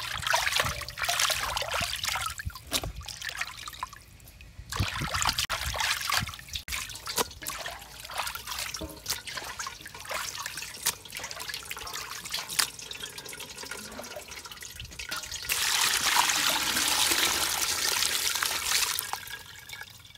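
Hands swishing small fish about in a metal basin of water, splashing and sloshing in bouts with sharp little splashes. Near the end, water pours or trickles steadily for a few seconds.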